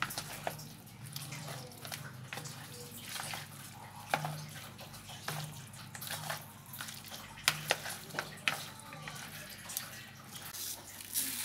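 Raw chicken pieces being mixed by hand with curry powder in a plastic bowl: wet squishing and slapping of the meat, with scattered sharp clicks as pieces and chopsticks knock against the bowl.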